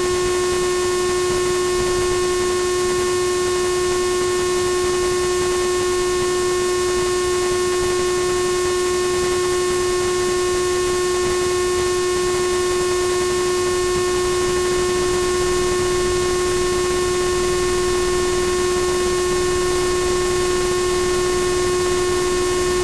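A steady, unchanging hum: one strong pitch with fainter higher overtones over a constant hiss.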